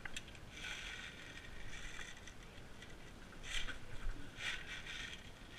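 Rustling and scraping of gear and straw being handled, in several short bursts.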